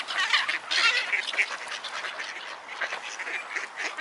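Gulls and ducks calling over one another: many short, harsh calls and quacks packed close together, loudest in the first second and a half.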